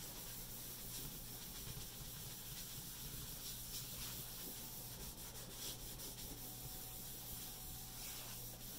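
Cotton rag rubbing back and forth over vine charcoal on paper, a faint steady swishing as the charcoal is buffed and blended into an even gray tone.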